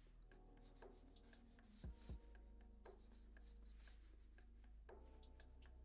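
Felt-tip marker drawn across paper in short, faint scratchy strokes, about one every second or so, as the lines of a sketch are laid down.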